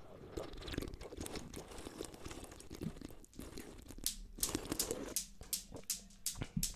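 Close-miked drinking of Red Bull from a can: sips and swallows with many small sharp wet clicks and crackles.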